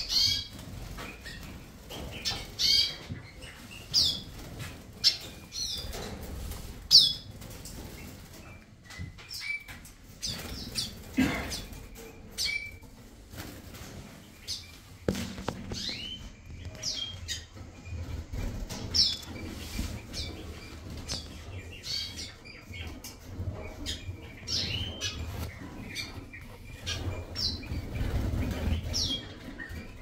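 Aviary finches and canaries calling with many short, sharp chirps that fall in pitch, scattered irregularly, with wings fluttering as birds flit about the flights.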